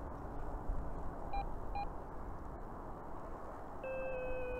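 Wind rumbling on the microphone, with two short electronic beeps about a second and a half in, then a steady electronic tone that starts near the end. The beeps and tone come from the RC glider transmitter's telemetry.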